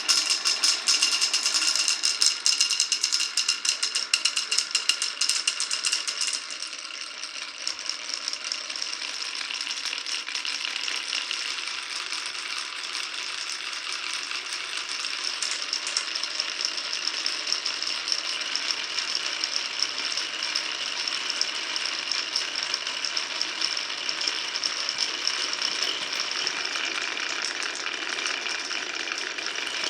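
Many glass marbles rolling and clattering down a wooden marble run: a dense rattle of clicks that starts suddenly and is loudest for about the first six seconds, then settles into a steadier, slightly quieter rolling rattle.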